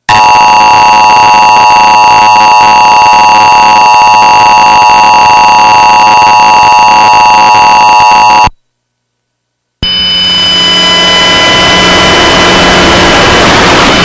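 Emergency Alert System attention signal: a loud, steady two-tone alarm held for about eight and a half seconds, then cutting off sharply. After about a second of silence, a loud hiss of noise with faint steady tones comes in and swells slightly.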